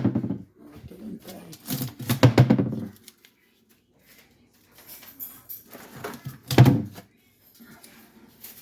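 Indistinct voices in a small room, in three short bursts: near the start, around two seconds in, and once more about six and a half seconds in.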